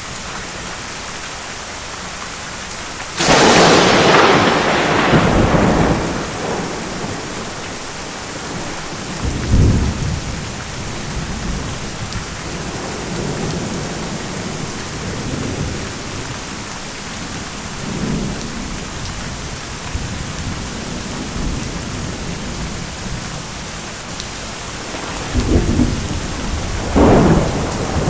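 Steady rain falling, with a sharp thunderclap about three seconds in that rolls away over a few seconds. Low thunder rumbles come and go through the middle, and a second clap builds near the end.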